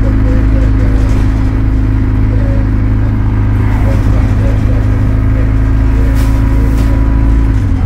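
Diesel engine of an Alexander Dennis Enviro200 single-deck bus, heard from inside the saloon, running steadily as the bus pulls along the road; near the end the engine note drops.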